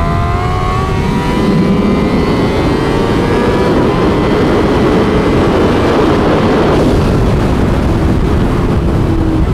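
Honda Fireblade SP's inline-four engine pulling hard at high speed, heard from on board the motorcycle over a heavy rush of wind. Its pitch climbs steadily for most of the stretch, then drops a little near the end.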